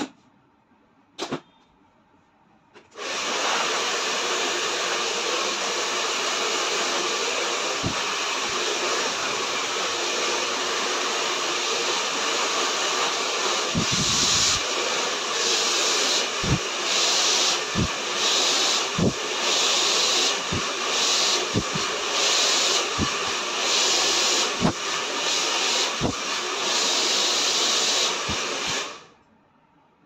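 Hand-held salon hair dryer switched on about three seconds in, blowing with a steady loud hiss while drying hair straight over a round brush. In the second half the hiss swells and dips about once a second as the dryer sweeps along the brushed section. It cuts off shortly before the end.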